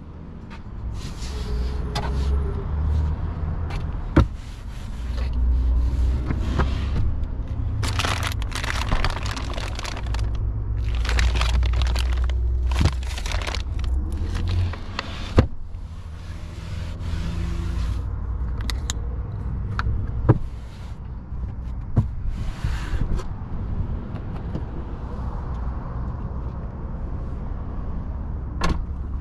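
Wind buffeting the microphone in a steady low rumble, with crinkling plastic wrap and several sharp clicks and knocks as the cargo-floor cover is lifted and the wrapped EV charging cable is handled.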